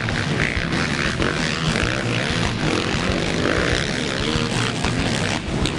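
Racing quad (ATV) engine running hard at high revs, its pitch rising and falling as the rider works the throttle.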